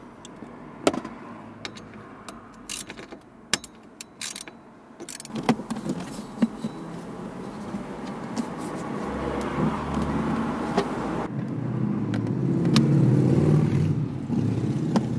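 Scattered sharp clicks and clinks of hand tools and small fasteners as the glove-box support bar under a car dashboard is unbolted and the trim worked loose. Over the second half a vehicle's rumble swells up, loudest near the end.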